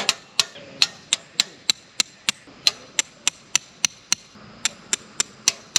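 A run of hammer strikes at a steady pace of about three a second, each sharp and ringing slightly, with a brief pause a little after four seconds before the strikes resume.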